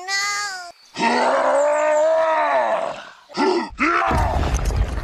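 A long, drawn-out animal call, rising and then falling in pitch, after a short call at the start. It is followed by a few short calls over a loud low rumble near the end.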